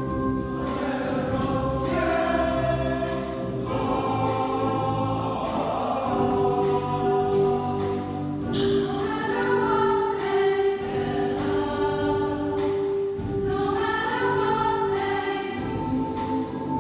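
Large combined choir singing with wind band accompaniment, the voices moving over long held notes.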